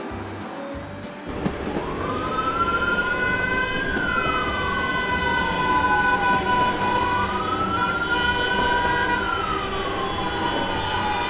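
Emergency-vehicle siren wailing in slow rising and falling sweeps, about five seconds each, over a low vehicle rumble. It comes in about a second and a half in, just after a rhythmic music beat stops.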